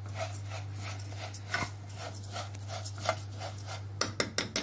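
Metal spoon stirring browned dry vermicelli in ghee in a pan, the noodles scraping and rustling against the pan in rhythmic strokes about three a second. A few sharp clicks of the spoon on the pan come near the end.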